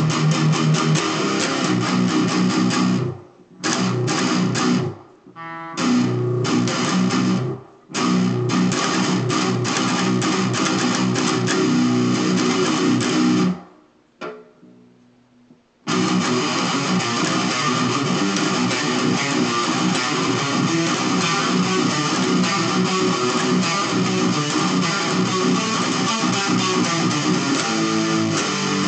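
Electric guitar playing heavy metalcore riffs. It stops briefly a few times early on, pauses for about two seconds a little before halfway, then plays on steadily.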